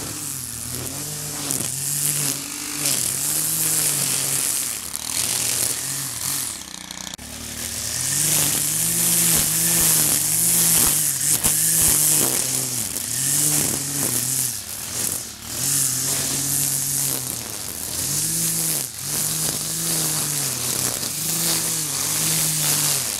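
Stihl KM 130 string trimmer's small 4-MIX engine revving up and down over and over as its spinning line cuts grass around a tree trunk, with a steady high hiss from the line. The engine eases off briefly about a third of the way in.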